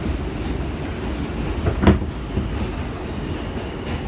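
Steady low rumble inside an R142 New York subway car, with one short knock about two seconds in.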